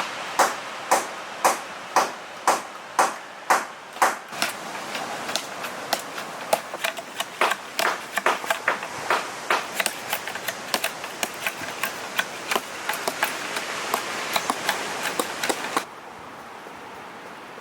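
Machetes striking bamboo: sharp chopping knocks, about two a second at first, then quicker and overlapping as more than one blade works, stopping suddenly near the end. A steady hiss of wind or surf remains after the knocks stop.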